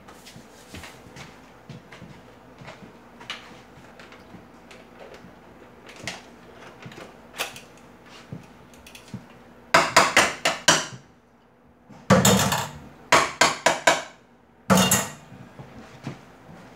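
Kitchen utensils clinking and clattering against pots and a plate as food is served out: light scattered clicks at first, then several bursts of rapid sharp taps and scrapes from about ten seconds in.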